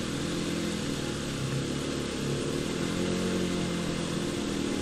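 Bajaj Pulsar NS200's single-cylinder engine running steadily under way, with an even hiss over it.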